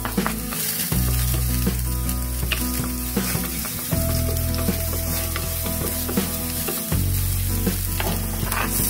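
Minced garlic sizzling in hot oil in a nonstick pan while a wooden spatula stirs it, with short clicks as the spatula touches the pan.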